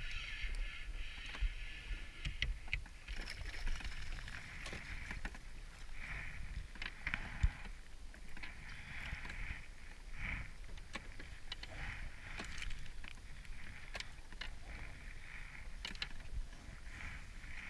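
Water sloshing and lapping against a drifting jet ski's hull, in recurring washes, over a low rumble of wind on the microphone. Scattered small clicks and knocks come from handling fishing gear, with one sharper knock about seven and a half seconds in.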